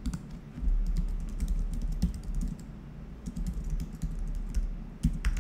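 Typing on a computer keyboard: a quick, uneven run of keystrokes with a low rumble underneath.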